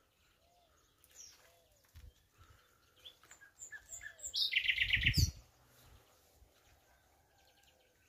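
Common nightingale singing in short phrases of varied high notes that build to a loud, rapid run of repeated notes about halfway through, with a low thump at the same moment.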